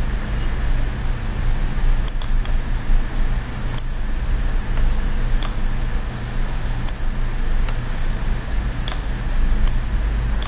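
Steady low electrical hum over room noise, with about nine short, sharp clicks spaced irregularly through it: a computer mouse being clicked while editing on screen.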